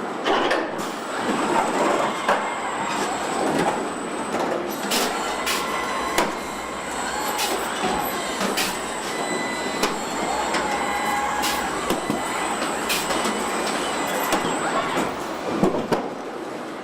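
Car assembly-line machinery running: a steady industrial din with short whirring whines and many sharp metallic clicks and clanks.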